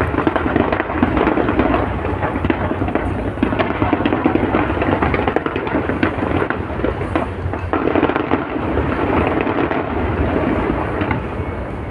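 Large aerial fireworks display: many shells bursting in quick, overlapping succession into a continuous crackling rumble with no break.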